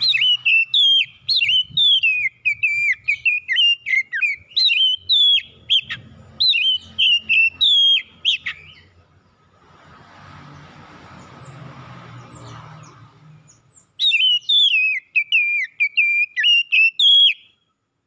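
Male oriental magpie-robin (kacer) singing a rapid run of varied whistled notes, many sliding up or down. It breaks off for several seconds about halfway through, when only a faint low hum and hiss are heard, then starts again near the end.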